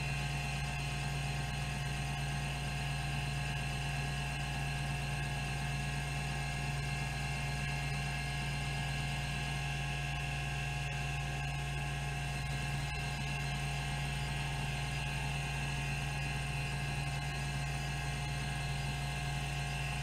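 Rodime RO252 10 MB MFM hard disk drive running: a steady whir and hum from its 3600 RPM spindle, with the band-driven stepper actuator moving the heads during a seek test.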